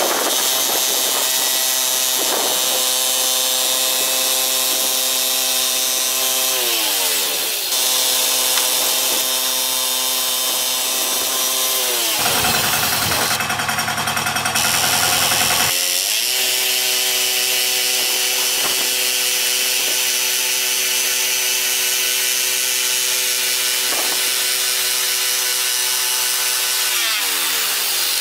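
Petrol engine of a portable bandsaw sawmill running steadily as the blade cuts through a log. The engine note sinks three times, about 7 s in, about 12 s in and near the end. For about four seconds in the middle a coarser, lower noise takes its place.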